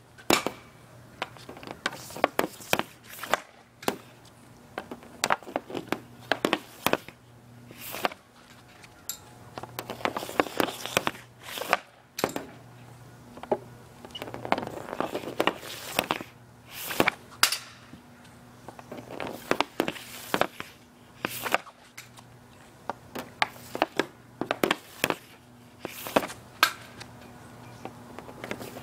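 A run of hockey shots with an Easton EQ50 composite stick: repeated sharp cracks as the blade slaps the puck off a shooting pad, coming in quick clusters every second or two.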